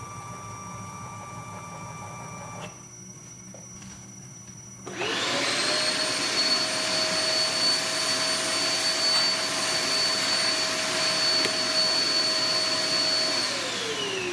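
Vacuum cleaner sucking sawdust out of a fresh CNC cut through a hose nozzle. It is switched on about five seconds in, its motor whine rising to speed within a second, runs as a steady rushing whine, and is switched off near the end, the whine gliding down as the motor spins down.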